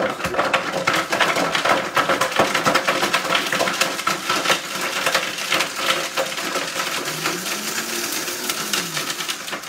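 Vitamix blender running at high speed, grinding almonds with garlic and pecorino, the hard pieces clattering and rattling against the jar. The motor cuts off near the end.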